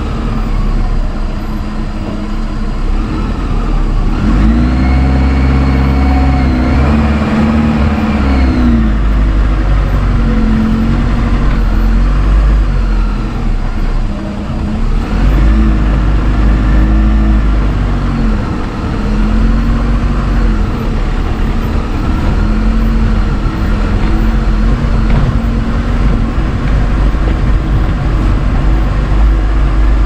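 Car engine revving up and easing off again and again as the car crawls over a rough, rain-damaged dirt road, over a heavy low rumble from the car.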